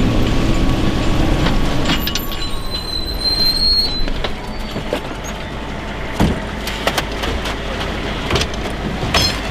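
A heavy vehicle running with a steady low rumble, a brief high-pitched squeal a few seconds in, and several sharp knocks and clanks near the end.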